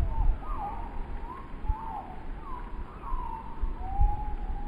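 Strong wind howling, with wavering whistling tones that rise and fall over one another, and gusts buffeting the microphone with low rumbles.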